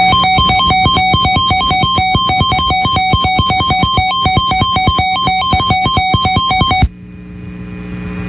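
Emergency alert attention signal: a fast, even electronic beeping on two alternating pitches over a steady low hum. It stops abruptly near the end, just before a tornado warning is read.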